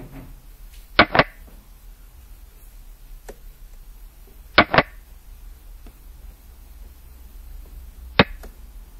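Sharp wooden click sound effects of xiangqi pieces being moved on a replay board: a quick double click about a second in, another about four and a half seconds in, and a single click near the end.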